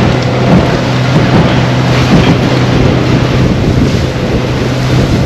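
Small motorboat running at speed: a steady low engine drone under wind buffeting the microphone and the rush of water and spray off the hull and wake.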